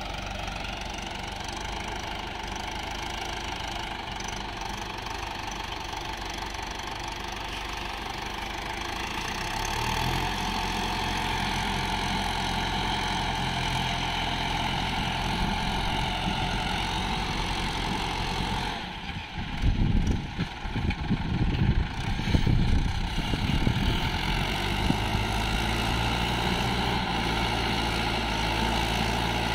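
Swaraj 843 XM tractor's three-cylinder diesel engine running under load as the tractor, hauling a loaded trolley, labours to pull free of deep sand; the engine gets louder about a third of the way in and stays up. Past the middle there are a few seconds of irregular low buffeting.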